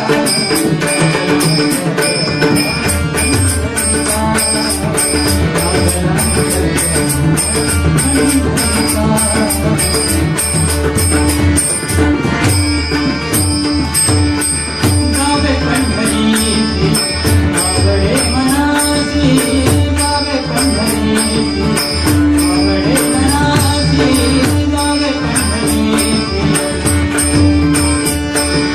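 Marathi devotional abhang music: melody over a steady percussion beat, with a deep low beat joining about two seconds in.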